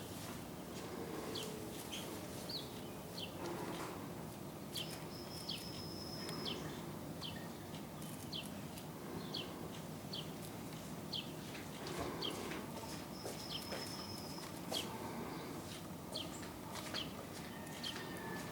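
A bird chirping over and over, short high chirps coming about one or two a second, with a couple of brief steady high whistles, over a constant outdoor background hiss.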